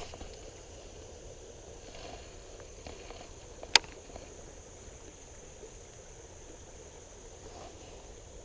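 Steady low rush of river water, with a thin, steady high insect drone over it. A single sharp click comes nearly four seconds in.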